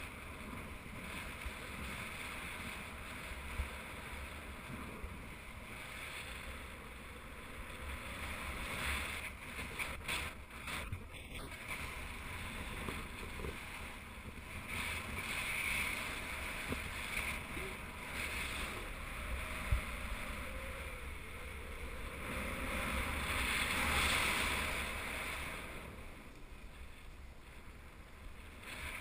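Wind rushing over the microphone of a camera on a paraglider in flight, swelling and easing several times, loudest near the end. Two brief light knocks come through it.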